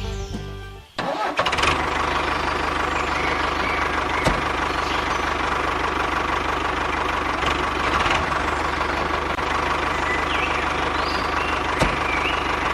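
Music cuts off about a second in, and a small engine starts and runs steadily with an even hum and a high whine. Birds chirp briefly near the end.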